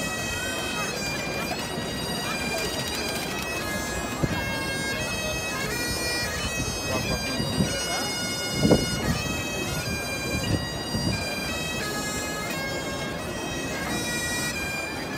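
A wind instrument playing a melody of held notes that step from pitch to pitch, over the murmur of a large crowd.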